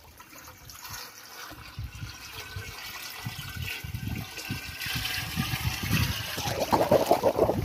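Water gurgling and sloshing around a clay pot as it is pressed down into shallow pond water, in quick irregular bursts that grow louder near the end.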